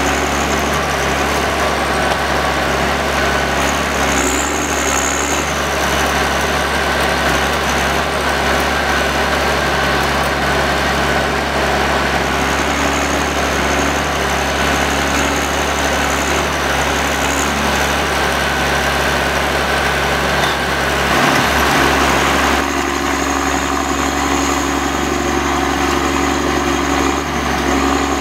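John Deere 1110D forwarder's diesel engine running steadily. About three-quarters of the way through it briefly gets louder, then settles to a different steady note.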